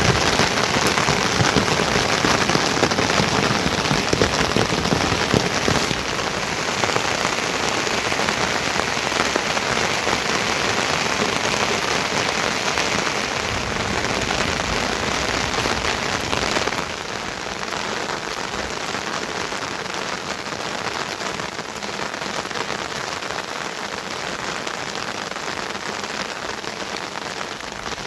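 Heavy rain falling steadily, a dense hiss of countless drops striking surfaces. It becomes somewhat quieter about six seconds in and again about seventeen seconds in.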